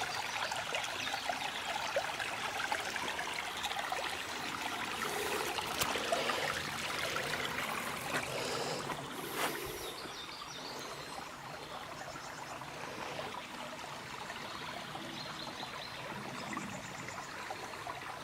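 A small spring-fed stream running and trickling steadily, a little quieter in the second half.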